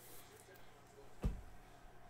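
Faint handling noise of trading cards and packs being worked at a table, with one low thump just past a second in.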